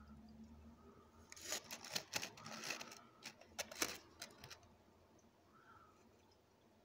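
Handling noise from the phone: a burst of scrapes and clicks about a second in, lasting around three seconds, sharpest near the four-second mark. Otherwise a faint room background.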